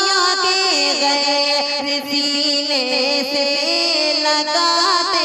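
A man singing a naat solo into a microphone, holding long, ornamented notes that slide between pitches.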